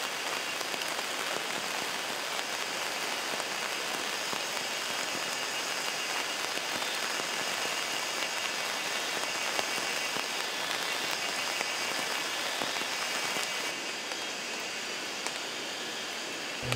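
Heavy rain falling steadily, a dense patter of drops. It softens slightly about fourteen seconds in.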